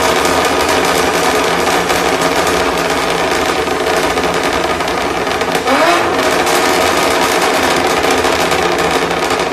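Infiniti G37 S Coupe's 3.7-litre V6 running loud and steady at high revs through an ARMYTRIX valvetronic exhaust, with a quick rise in pitch a little before six seconds in.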